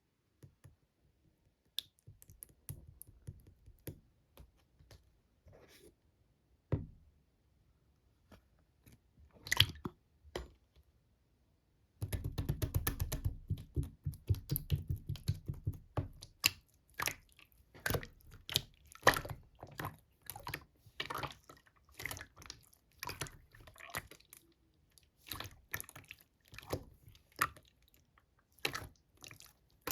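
Slime being squeezed and pressed by hand, making small wet clicks, pops and squelches. The sounds come sparse at first; about twelve seconds in there is a fast, dense run of crackling clicks, followed by frequent irregular squishy pops.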